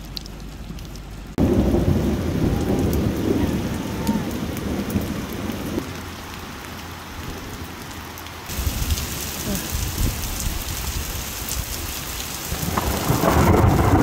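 Steady heavy rain with thunder: a low rumble of thunder starts suddenly about a second in and dies away over several seconds, the rain's hiss grows louder about eight seconds in, and another rumble of thunder builds near the end.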